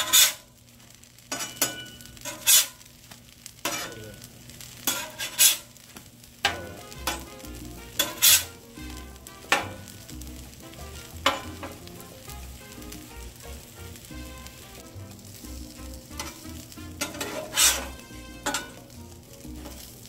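Steady sizzle of French toast and sausage frying on a Blackstone 22-inch steel griddle, broken by about a dozen sharp scrapes and clacks of a metal spatula sliding under the slices and flipping them.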